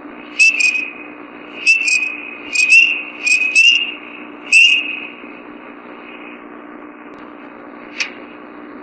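Field recording of short, high-pitched whistled calls, each a quick double note, given five times in about five seconds over a steady background hiss and hum, then a single sharp click about eight seconds in. These are the recordist's 'bizarre owls': owl-like calls that she finds very strange and suspects are not a true owl.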